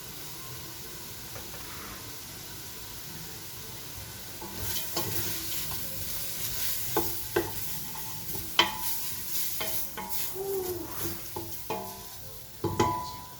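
Leeks and garlic frying in butter in a pot and being stirred. The sizzling starts about four and a half seconds in, and the spoon knocks sharply against the pot several times, loudest twice near the end.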